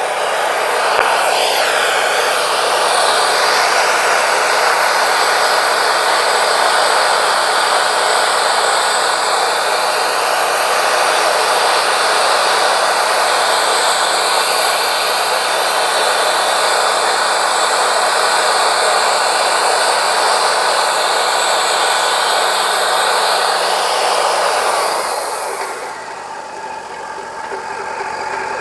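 Wood-Mizer LT40 Wide band sawmill cutting steadily through a yellow pine cant, the blade's noise over the mill's engine. About 25 seconds in the cut ends and the noise drops away, leaving the engine running without load.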